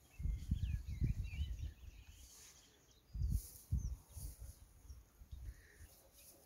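Irregular low rumbles of wind buffeting the microphone, strongest in the first two seconds and again about three seconds in, with faint bird chirps early on.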